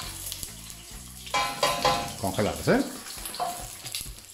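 Frozen shell-on prawns sizzling and crackling in hot oil in a stainless-steel pot.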